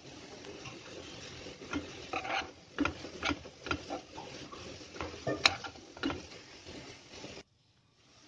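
A spoon stirring and scraping grated raw papaya with ghee around a nonstick kadai, in a string of irregular scrapes and knocks over a steady low sizzle. It cuts off abruptly about seven seconds in.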